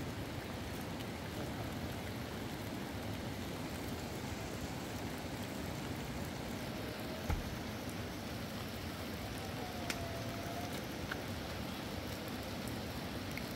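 Steady rain falling, an even hiss, with a faint knock about seven seconds in.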